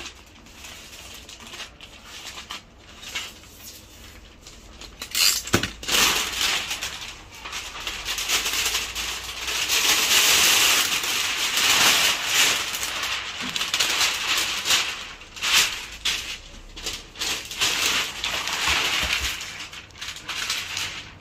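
Clear plastic shrink-wrap film being pulled off a roll and wrapped around a large picture frame, rustling and crackling, louder from about five seconds in.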